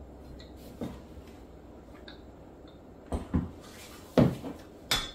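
Short handling knocks and clatters: a faint tick about a second in, then four quick knocks in the second half, the loudest about four seconds in, over quiet room tone.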